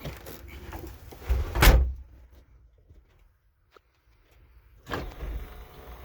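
One heavy slam about a second and a half in, a Mercedes G-Class door being shut. Nearly three seconds of dead silence follow, then the background comes back with a softer knock.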